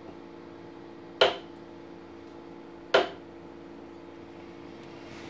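Wooden mallet striking a wood-carving chisel: two sharp knocks with a short ring, a little under two seconds apart, over a faint steady hum.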